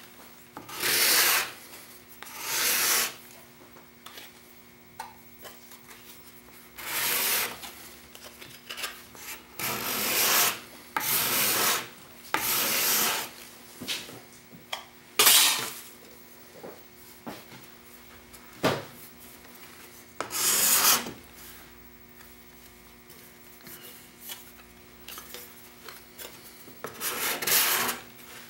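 A hand-held steel scraper blade drawn across a wooden board in separate rasping strokes, each under a second long, raising curly shavings. The strokes come in irregular groups with pauses of several seconds between them.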